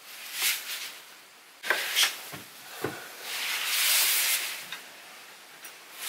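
Hand work on electrical wiring with crimping pliers: a few light clicks and knocks as spade connectors are crimped and wires handled, among soft rustling swells.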